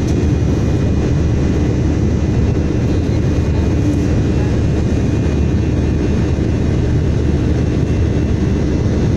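Airliner cabin noise in flight: a low, steady roar of jet engines and airflow heard inside the cabin at a window seat.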